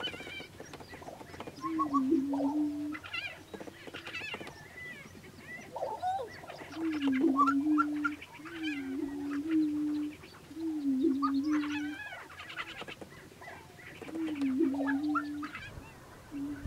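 Male prairie chickens on a lek giving their mating-display calls. A low, moaning boom with a dip in pitch comes again and again, about every two seconds, over shorter, higher cackling and whooping calls.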